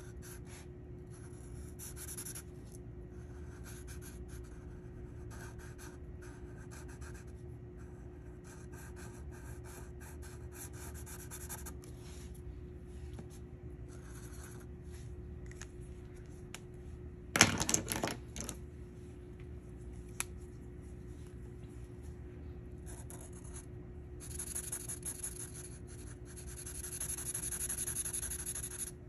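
Felt-tip marker scratching across paper in many short colouring strokes, becoming denser and longer near the end. About two-thirds of the way through, one sharp clatter, the loudest sound, over a faint steady hum.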